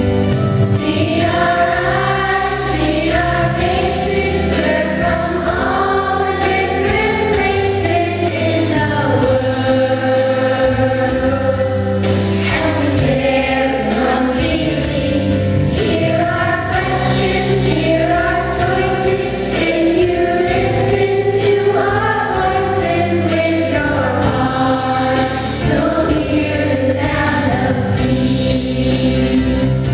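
Music: a group of voices singing a song together over instrumental backing with a steady beat.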